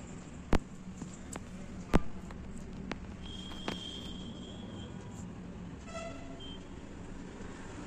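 Two sharp clicks and a few fainter ticks over a low steady hum, with a short high-pitched beep about three seconds in and a brief horn-like toot about six seconds in.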